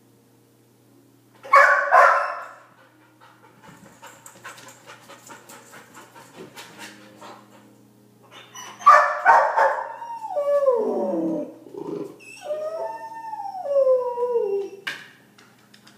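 A dog left alone barking and howling in distress, a sign of separation anxiety: two loud barks about a second and a half in, quick faint ticking for a few seconds, then another bark leading into several drawn-out howling cries that fall in pitch.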